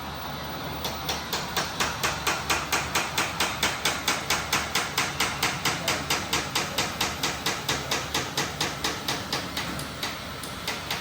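Hydraulic breaker hammer on an RC model excavator pounding rock in a fast, even series of blows, about four to five a second. It starts about a second in and stops near the end, over a steady low hum.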